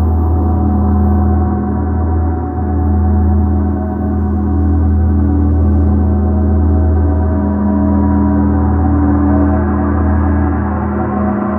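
A large gong ringing in a long sustained drone, many tones layered and slowly swelling and ebbing, deepest and strongest at the bottom.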